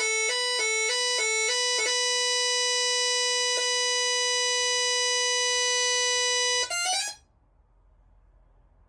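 Gardtec 595/600 intruder alarm sounder giving a harsh electronic tone. For about the first two seconds it warbles between two close pitches several times a second, then holds one steady pitch and cuts off abruptly about seven seconds in.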